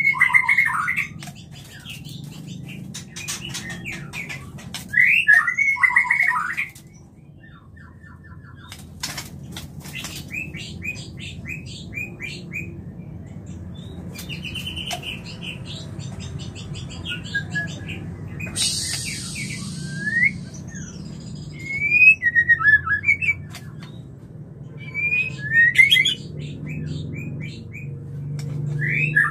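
White-rumped shamas in breeding condition calling in bursts: short sharp notes, quick falling whistles and rapid chirped phrases, mixed with clicks and a brief harsh rasp about 19 seconds in. A steady low hum runs underneath.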